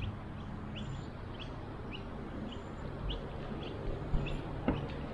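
A small bird calling in a steady series of short, high, rising chirps, about two a second, over a steady background hiss.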